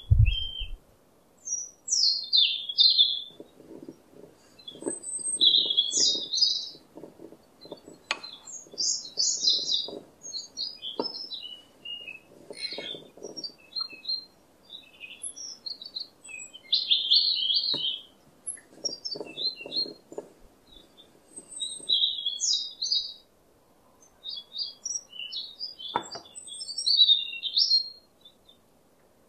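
Small birds chirping and twittering in bursts of short high calls with brief pauses between. A quieter, rapid low clatter runs underneath in a few stretches.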